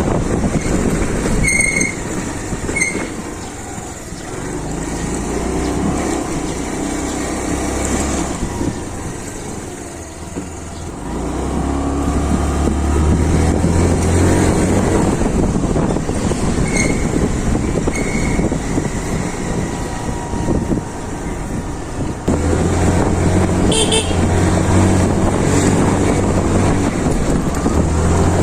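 Yamaha Ray ZR scooter under way, its engine running with wind noise on the microphone, the engine note picking up at times as the throttle opens. A horn toots briefly twice near the start and twice more past the middle.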